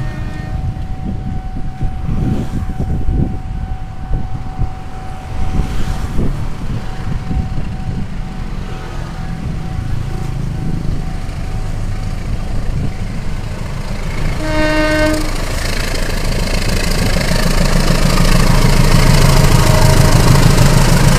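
A CC 201 diesel-electric locomotive and its train approaching and passing close. It gives one short horn blast about fifteen seconds in, then the engine and the wheels on the rails grow steadily louder and are loudest near the end.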